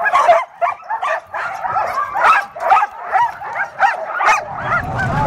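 A team of sled dogs in harness barking, yipping and whining, several short high yelps a second, worked up and eager to run. A low rumble comes in near the end.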